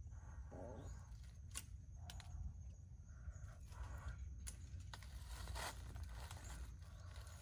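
Faint forest ambience: a steady low rumble with a few soft rustles and sharp clicks from dry leaves and twigs.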